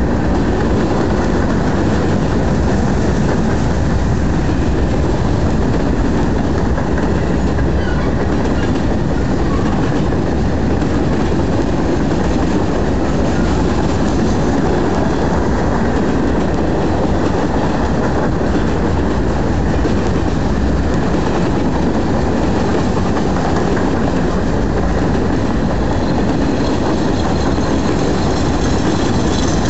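Norfolk Southern freight train's covered hopper cars rolling past close by: a loud, steady rumble of steel wheels on the rails.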